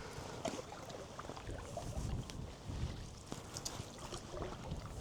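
Canoe paddle strokes in river water: the blade dipping and pulling, with small splashes and drips. There is a low wind rumble on the microphone.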